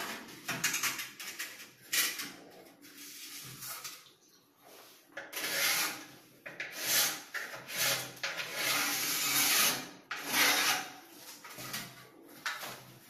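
Pencil scratching a marking line on a rough cement-rendered wall along a spirit level, in a series of strokes, some brief and some a second or more long, with the level scraping against the wall as it is shifted.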